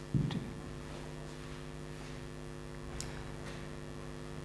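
Steady electrical mains hum. A brief dull thump comes just after the start, and a faint click follows about three seconds in.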